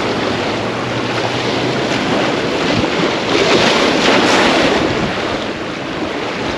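Wind rushing over the microphone together with waves washing, a steady noise that swells a little in the middle.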